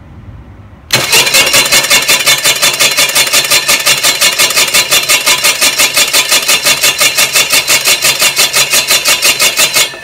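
Hi-Winch twin-motor off-road winch running at full speed with no load, spooling in rope at roughly 215–230 metres per minute. It starts suddenly about a second in, runs loud with a rapid, even pulsing, and cuts off just before the end.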